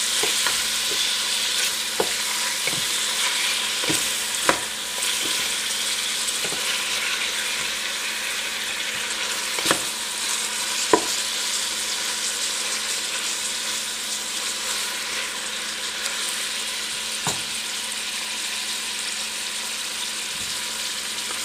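Beef strips and chopped onion sizzling in oil in a stainless steel pot over medium heat as they brown, a steady hiss. Scattered clicks of the stirring utensil knock against the pot, the loudest about four and a half, ten and eleven seconds in.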